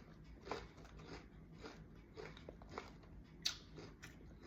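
A person crunching and chewing salted egg flavored potato chips: faint, irregular crunches, with a sharper crunch about three and a half seconds in.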